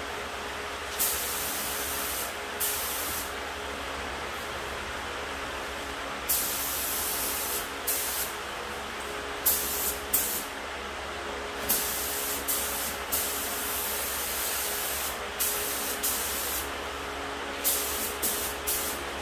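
HVLP spray gun set at about 28 PSI, hissing in repeated bursts of a second or two as the trigger is pulled and released while spraying epoxy primer. A steady hum runs underneath.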